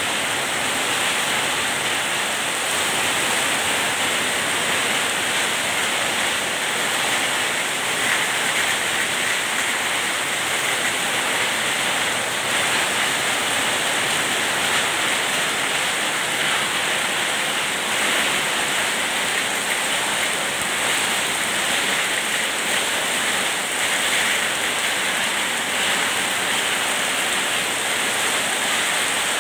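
Heavy downpour: a steady, even hiss of rain with no let-up, water streaming off the roof edges.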